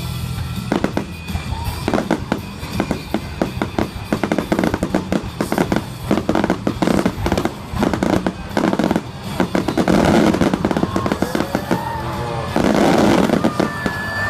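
Climax barrage of aerial fireworks: shell bursts and crackle going off in rapid succession, densest about ten seconds in and again near the end.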